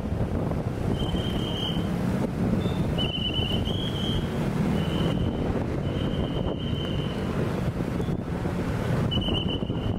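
Slow city traffic of cars and motorcycles on a wet street, a steady rumble with wind buffeting the microphone. Short high whistle tones sound about six times over it.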